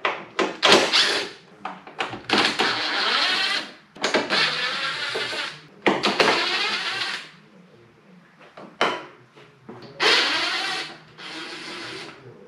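Cordless power driver spinning out the 10 mm bolts of a car's underbody cover, in several separate runs of up to a few seconds each with short pauses between.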